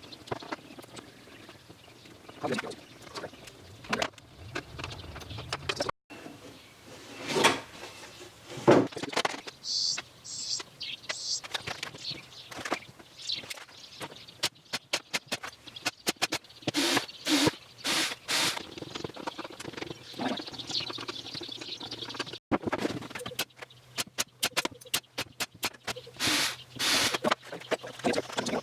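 Irregular clicks, knocks and taps of hand assembly work on a wooden workbench, with a few short runs of rapid clicking.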